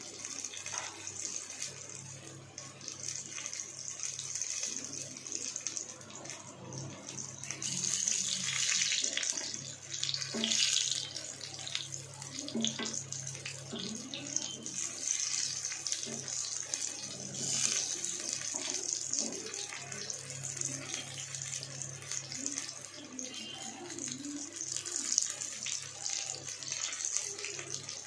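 Batter-dipped snacks deep-frying in hot oil: a steady sizzle with small crackles.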